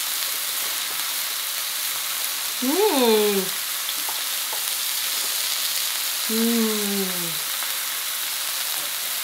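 Steaks sizzling steadily on a hot tabletop grill pan. A person hums twice while eating, each hum falling in pitch, about three seconds and six seconds in; the first is the louder.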